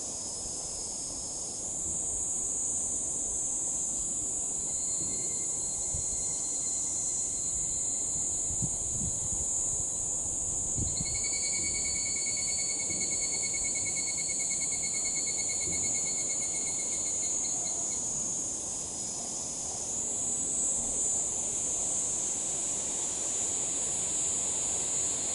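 Higurashi (evening cicadas) calling in chorus: a dense, high-pitched ringing trill, with individual calls swelling and fading as cicadas start and stop. A lower, pulsing tone runs through the middle, from about five to eighteen seconds in.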